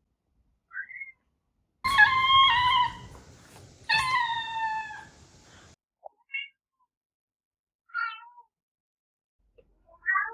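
Domestic cats meowing in a string of separate meows: a short one near the start, two long drawn-out meows about two and four seconds in, then a few brief, short meows.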